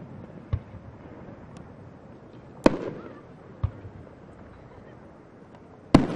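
Aerial firework shells bursting: two loud sharp bangs about three seconds apart, each trailing off in a rumbling echo, with smaller dull thuds in between.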